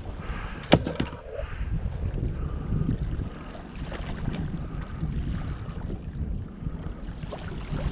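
Wind rumbling steadily on the microphone, with one sharp knock just under a second in.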